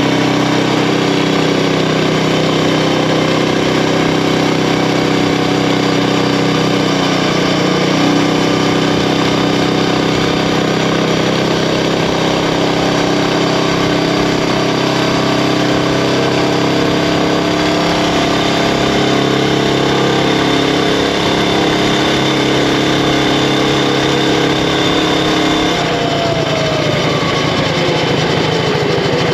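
Predator Ghost 212cc single-cylinder four-stroke engine on a mini bike running steadily at high revs. Near the end its pitch falls as it slows down.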